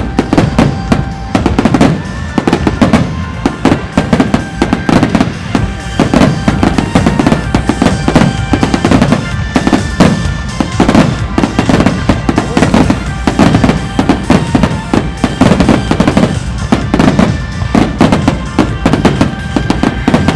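Aerial firework shells bursting in rapid succession, a dense barrage of bangs, over loud music playing with the display.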